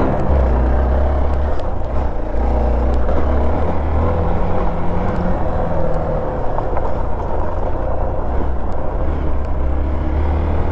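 Motorcycle riding up a rough dirt trail, its engine running steadily under a heavy low rumble, with scattered sharp small ticks.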